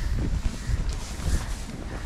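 Wind buffeting the microphone: an uneven low rumble in gusts, over a hiss.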